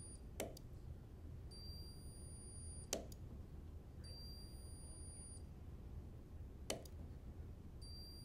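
Spot welder firing three welds through a thin steel strap holding down a vibrating wire strain gauge's cover. Each weld is a short sharp snap, a few seconds apart. A high steady tone of about a second sounds between the welds.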